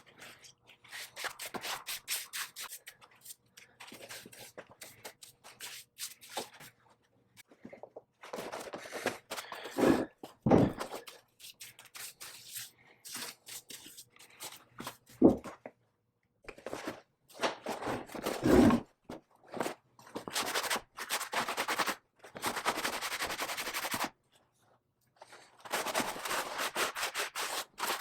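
Hand work on metal parts: an irregular run of knocks and clinks, with several stretches of scraping or rubbing and a few louder knocks.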